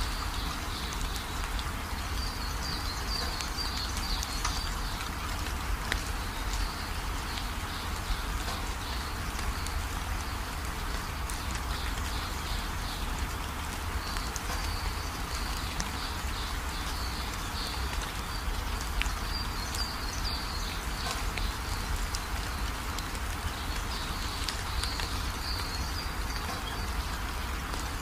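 Steady background noise with a low rumble, and bursts of high chirping trills every few seconds, plus a few faint clicks.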